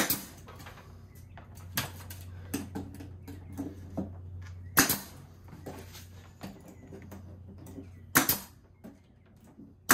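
Pneumatic brad nailer firing nails to fix pine face-frame strips to a plywood cabinet: a few sharp shots spaced a couple of seconds apart, with lighter knocks between them.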